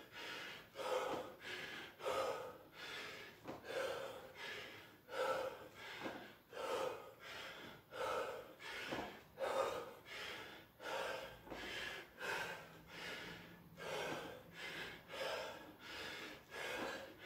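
A man breathing hard from exertion, short quick breaths in and out in a steady rhythm of about three every two seconds.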